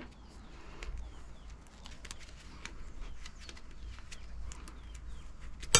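Light clicks and small rattles of scrap parts being handled, with faint bird chirps in the background. A single sharp metallic clink comes near the end.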